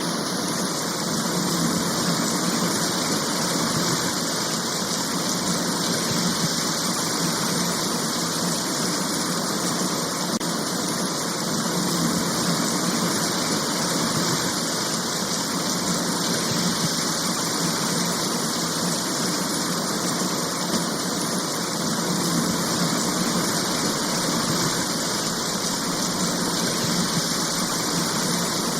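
Steady hiss of heavy rain falling, even and unbroken.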